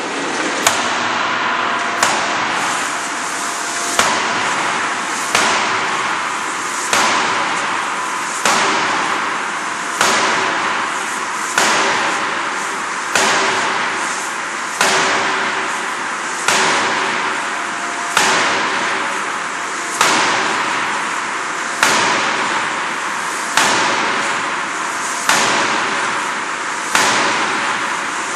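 A 400 kJ hydraulic closed die forging hammer striking a hot steel flange blank in a steady rhythm, one heavy blow about every second and a half to two seconds. Each blow is a sharp metallic bang that rings out into a steady noise before the next.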